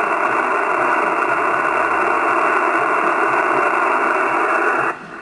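Steady static hiss from an Icom IC-756PRO shortwave transceiver receiving on the 20-metre band with no station talking. It drops sharply near the end.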